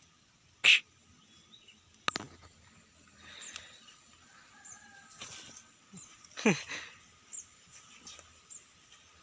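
Rural outdoor ambience: faint bird chirps over a steady faint high hum, broken by a few brief, sharp sounds. The loudest comes a little under a second in, and another at about six and a half seconds falls steeply in pitch.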